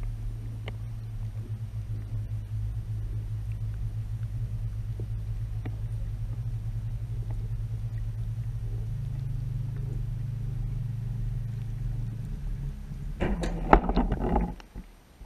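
Muffled, steady low hum heard from a drone's camera lying underwater. Near the end there is a short cluster of louder, rough bursts of noise, then it goes quieter.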